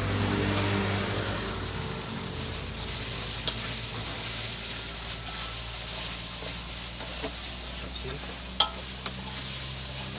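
Sliced spring onions and ground chili spice paste sizzling in hot oil in a pan while being stirred, with small scraping ticks and one sharp tap against the pan about eight and a half seconds in. A steady low hum runs underneath.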